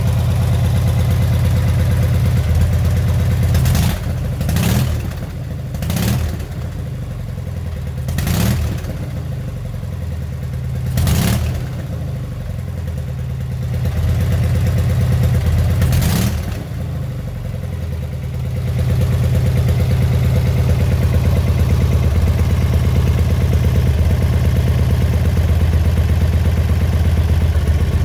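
Freshly rebuilt Kiev K750 side-valve flat-twin motorcycle engine running on a test stand. Its throttle is blipped about six times in the first half, each a quick rise and fall in engine pitch. From about two-thirds of the way in it holds a steady, faster, louder run.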